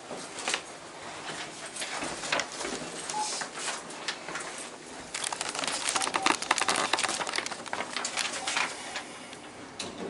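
Rustling and crackling handling noise with scattered sharp clicks, thickening into a dense run of crackles for a few seconds from about the middle on, in the close, boxy sound of a small elevator car.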